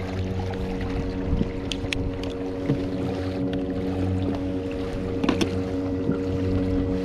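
Kayak under way on an electric Bixpy motor: a steady, even motor hum over wind and water noise, with a few light clicks.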